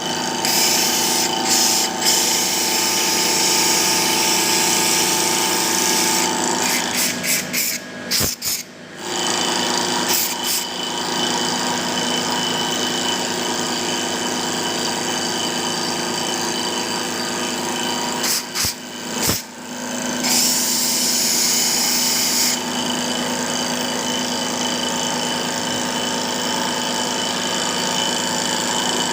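Mini CNC wood lathe turning a wooden blank: a steady motor whine with the hiss of the cutting tool on the spinning wood, which grows stronger in stretches. There are short breaks with sharp clicks about eight and nineteen seconds in.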